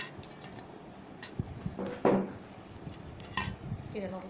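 Fingers scooping and mashing food on a steel plate while eating by hand, with a few sharp clicks against the metal and a louder knock about two seconds in.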